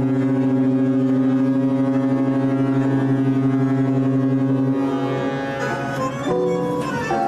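A large ship's horn sounds one long, deep, steady blast lasting about five seconds, over background music. After the blast stops, the music goes on with shorter notes that change in pitch.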